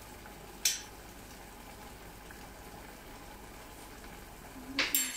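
Pot of thick pasta and potato soup simmering on the stove, a faint steady bubbling. A sharp click comes about two-thirds of a second in, and a brief louder noise near the end.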